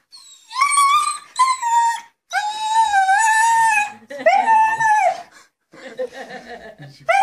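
Long-haired German Shepherd howling and whining in excitement at its owner's return: a run of about six drawn-out, high-pitched calls, some held level and some arching up and falling away, the longest about a second and a half.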